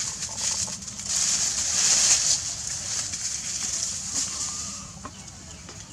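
Dry leaves rustling, a hiss that swells for about three seconds and then fades.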